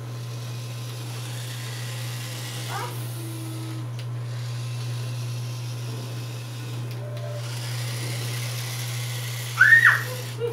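Small electric motors of remote-control toy bumper cars whirring as they are driven, the whir stopping briefly a few times when the throttle is let go, over a steady low hum. A brief loud squeal near the end.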